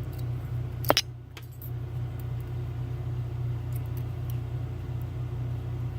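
Steady low hum, with one sharp metallic click about a second in and a few faint ticks later: small metal lock parts being handled while a Trioving pin-tumbler lock is taken apart.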